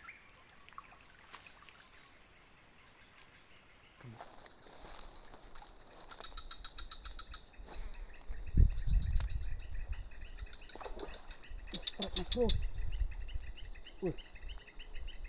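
Steady high-pitched buzzing of an insect chorus. About four seconds in it jumps louder, with low rumbles and scattered clicks mixed in.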